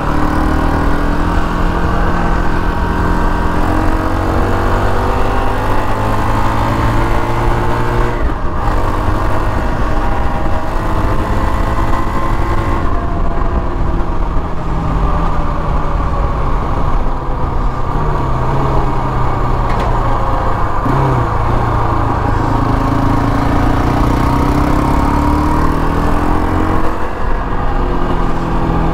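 KTM 525 XC quad's single-cylinder four-stroke engine running under way, its revs rising and falling several times as the throttle is worked.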